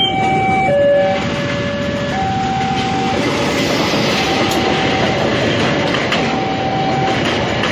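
Train cars rolling past at a railway level crossing, the wheels clattering steadily over the rails. Over it, the crossing's warning alarm alternates between two tones about once a second, plainest in the first second and fainter and broken after.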